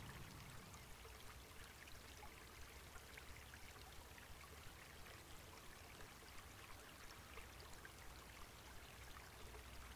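Near silence with a faint, steady trickle of stream water.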